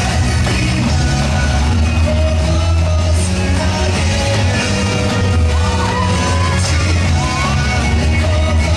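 Loud pop-rock dance music with singing and a heavy, steady bass line.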